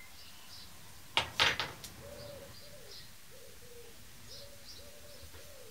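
A pigeon cooing, a run of short low notes repeating from about two seconds in, with faint high chirps of small birds behind it. A few brief knocks come about a second in.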